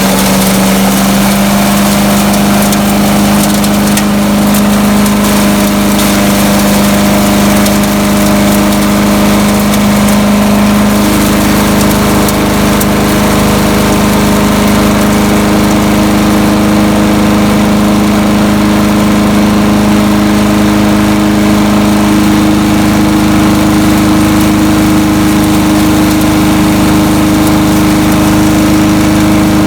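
Gas engine of a Landworks 7 hp chipper shredder running steadily at speed. Its tone changes slightly about eleven seconds in.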